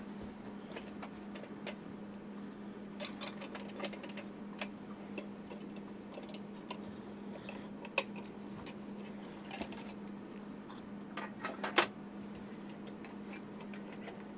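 Scattered small clicks and light taps of a hurricane lantern's parts being handled and fitted back together, with the sharpest cluster about eleven to twelve seconds in. A steady low hum runs underneath.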